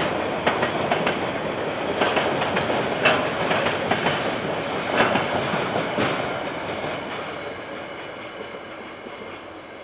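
Railway wagons rolling past, wheels clicking over rail joints amid a steady rumble, heard through a security camera's microphone; the sound fades away over the last few seconds as the end of the train passes.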